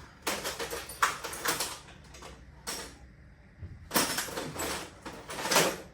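Hand tools scraping and clattering in a cluttered toolbox as someone rummages for an Allen key, in several short bursts.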